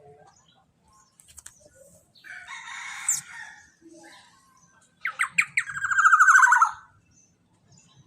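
Young black-naped oriole (kepodang) giving harsh, scratchy calls. The first comes about two seconds in. The second, louder one starts around five seconds in: a few quick notes running into a longer rasping call.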